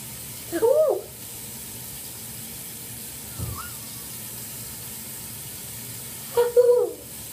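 Bathroom tap running steadily, the water going down an unplugged drain. A child's voice makes two short wordless sounds, one about half a second in and one near the end.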